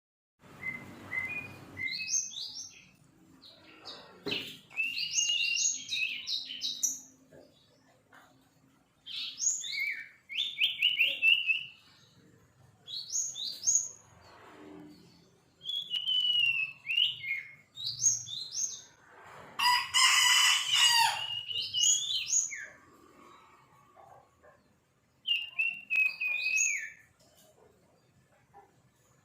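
A young sirpu songbird practising its song: short phrases of high, quick chirps and trills, repeated every few seconds with pauses between. About two-thirds of the way through comes a louder, fuller call.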